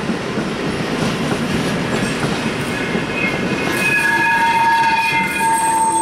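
Passenger coaches rolling past slowly with a steady rumble of wheels on rail. About halfway through, a steady high squeal of several tones joins in and grows louder, typical of wheels squealing through curved track.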